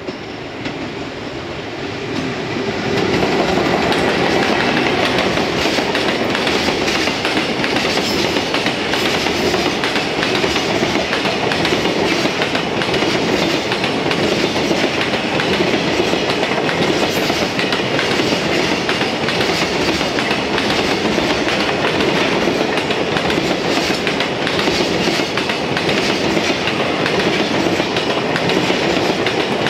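Freight train of container flatcars passing close by, wheels clattering over the rail joints. It swells over the first three seconds, then holds steady.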